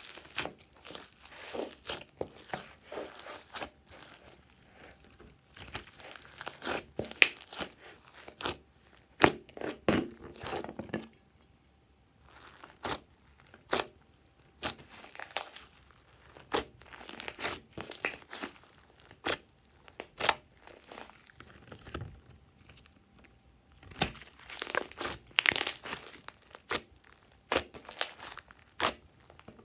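Hands kneading, squeezing and stretching glossy slime mixed with foam beads and glitter: irregular sticky crackles, pops and squishes as the slime is pressed and pulled apart, with short pauses between handfuls.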